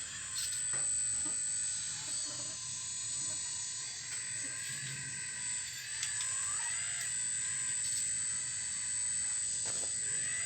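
A full-metal RC excavator's motors whine steadily and high-pitched as it digs, the pitch of some tones sliding up and down as the arm and bucket move. Occasional short clicks and knocks come through over the whine.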